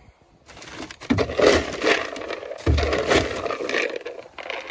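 Plastic scoop dug into a paper sack of horse feed pellets: the pellets rattle and the sack rustles, with two dull knocks about one and two and a half seconds in.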